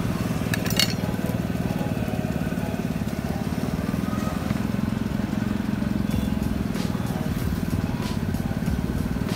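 A motorcycle engine running steadily close by, a low rumble throughout. A plastic bag crinkles briefly just under a second in.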